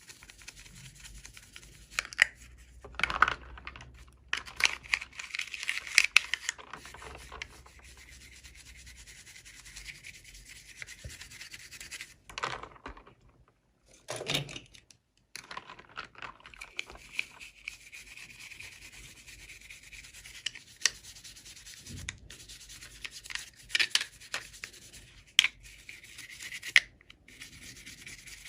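Hands unwrapping and handling small plastic toy packaging: irregular rustling and rubbing with scattered sharp clicks and taps.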